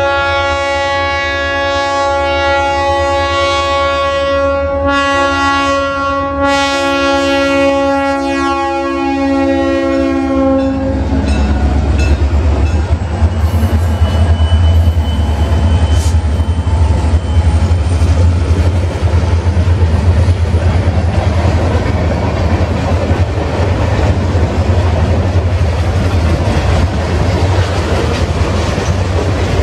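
Diesel freight locomotive's air horn blowing a multi-note chord in several blasts for a grade crossing, for about the first ten seconds. Then the locomotives' diesel engines rumble loudly as they pass close by, and the freight cars roll past with wheels clicking over the rail joints.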